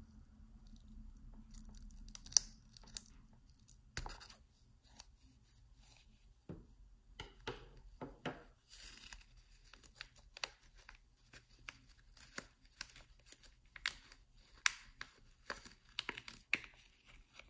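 Scissors snipping open a thin clear plastic sleeve, then the plastic crinkling and crackling in scattered sharp bursts as a fountain pen is worked out of it.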